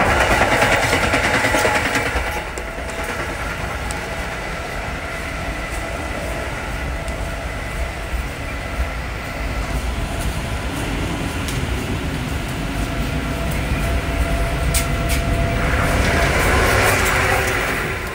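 Running noise inside a passenger train carriage: a steady rumble of the wheels on the track, swelling louder for a couple of seconds at the start and again near the end, with a few brief clicks.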